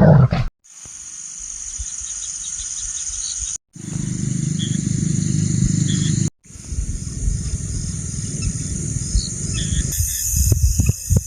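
Night insects, crickets, trilling steadily in several short spliced clips. A low steady rumble joins in the middle clip, and irregular sharp knocks sound near the end.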